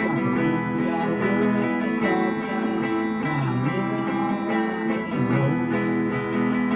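Guitar being played, chords struck in a steady rhythm with notes ringing on between the strokes.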